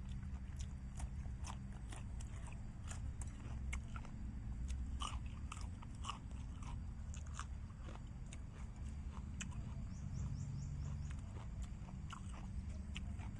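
A person chewing and biting food close to the microphone, many short irregular crunchy clicks: eating steamed herbal chicken. A steady low rumble runs underneath.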